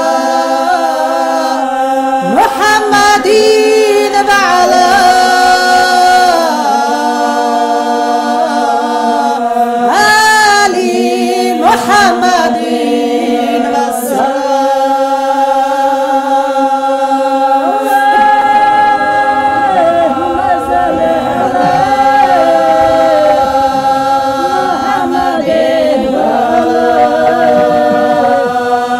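Unaccompanied singing by several voices: a melody winding up and down over a steady held drone.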